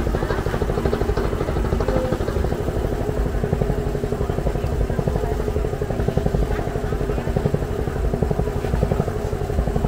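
A small engine running steadily close by, with a fast even pulsing and a steady hum.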